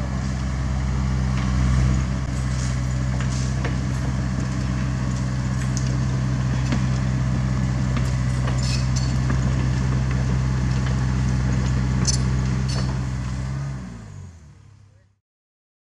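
Diesel engine of a CAT 305.5E2 mini excavator running at a steady speed, with a few sharp metallic clicks now and then. The sound fades out near the end.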